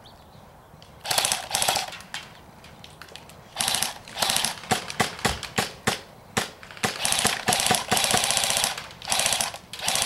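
Airsoft guns firing, mostly rapid full-auto bursts of about half a second to a second each, starting about a second in and coming again and again, with a few single shots between the bursts.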